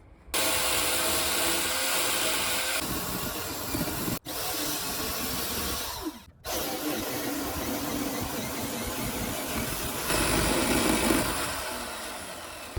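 Chainsaw cutting through old wooden railway sleepers, a loud steady running sound broken by two brief drops near the middle.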